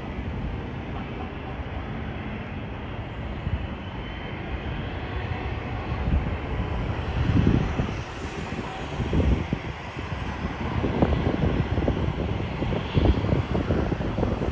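Airliner engines running loud and steady as a plane passes, with irregular low rumbling surges in the second half.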